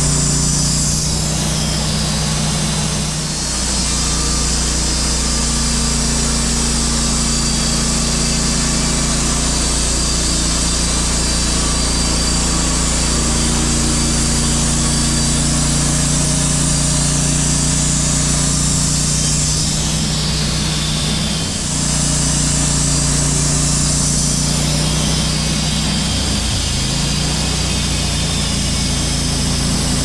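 EZ Boardwalk 40 bandsaw mill running on its 21–22 horsepower Honda engine, the band blade sawing a board off a sappy pine cant as the saw head is pushed along the log. The steady engine note with its high sawing hiss dips briefly twice, a few seconds in and about two-thirds of the way through.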